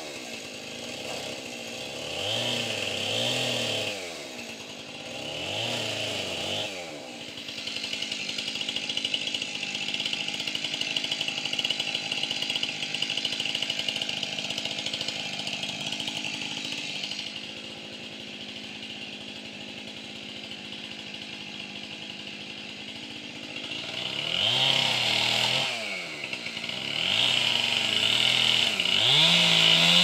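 Two-stroke chainsaw revved up and down several times, then running steadily at a low putter for a long stretch, and revved again a few times near the end.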